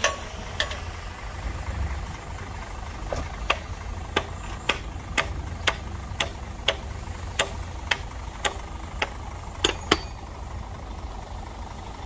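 Heavy earthmoving machine's engine running with a steady low rumble, over which comes a regular series of sharp knocks about twice a second from about three seconds in to near ten seconds.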